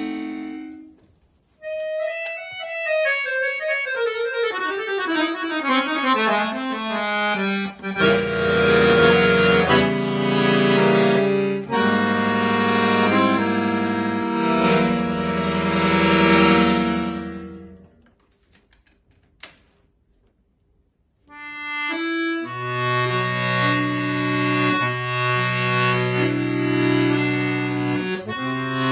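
Solo accordion playing. After a short pause it plays a fast run of notes falling in pitch, then full sustained chords over bass notes. These die away to a near-silent pause about eighteen seconds in, and chords and bass start again a few seconds later.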